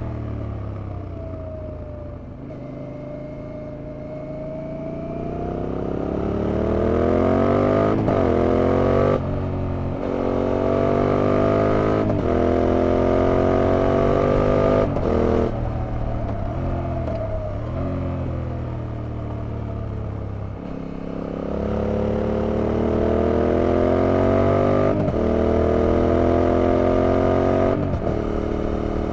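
2001 Yamaha TDM 850's 270° parallel-twin engine pulling hard through the gears, its pitch climbing and then dropping sharply at each upshift. About halfway through it eases off the throttle and slows, then accelerates again through two more shifts.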